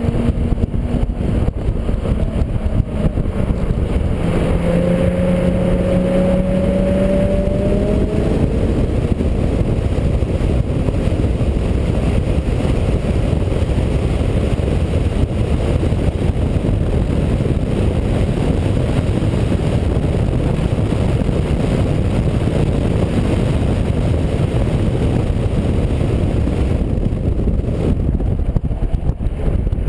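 2004 Infiniti G35 coupe's 3.5-litre V6, fitted with a short-ram intake and a 350Z Y-pipe, pulling hard around a racetrack, heard from the cabin. About four seconds in, its note rises in pitch for a few seconds; after that it is mostly covered by steady wind and road noise.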